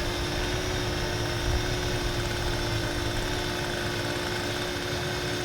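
Parrot Anafi quadcopter's propellers and motors humming steadily at one pitch while it hovers and turns in place, over a low rumble.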